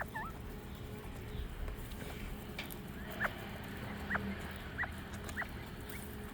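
Young northern bobwhite quail giving short, high peeps, about one every half second to a second, over a faint steady low hum.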